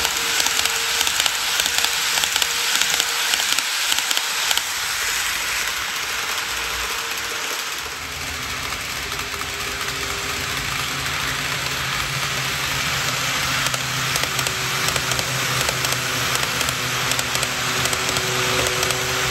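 N-gauge model train running on track: a steady crackling rattle of wheels on the rails with fine clicking. About 8 s in the sound changes and a low steady motor hum joins the rattle as a long train crosses the layout.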